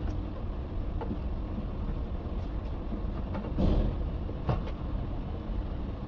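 Steady low hum of workshop background, with a few light clicks and a short scraping rustle about three and a half seconds in, from hands working at plastic trim on a car's door frame.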